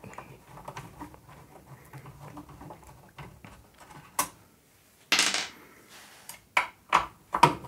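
Small screwdriver backing self-tapping screws out of the Neutrik XLR connectors on a metal DAC chassis: faint scraping and ticking, a sharp metal click about four seconds in, a short scraping rush just after five seconds, and several more clicks near the end.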